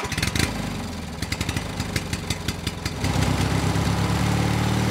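Auto-rickshaw engine sound effect: a quick, uneven clatter for about three seconds, then a steady idle.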